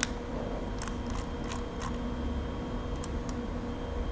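A scattered handful of light clicks from a computer mouse and keyboard over a steady low hum.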